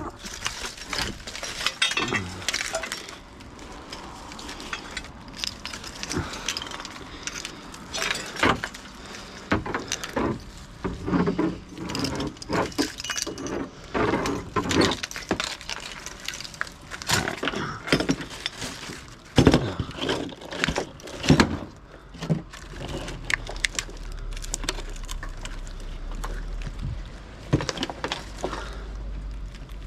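Scrap being sorted by hand: irregular clanks, clinks and knocks as pieces of metal and plastic are handled and tossed onto piles. A low steady hum comes in for the last several seconds.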